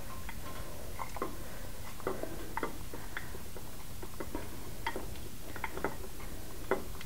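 A spoon scraping and tapping against a bowl as wet coffee grounds mixed with raw egg and eggshell are spooned into a coffee pot. The sound is light, irregular clicks and short scrapes, about one or two a second.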